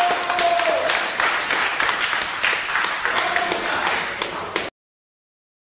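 Crowd clapping, with voices calling out over the applause, greeting a winner's announcement. It cuts off suddenly near the end.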